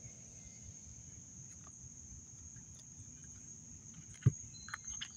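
Steady high-pitched insect chorus, like crickets. A few light clicks and one sharp knock about four seconds in come from cards being handled at the table.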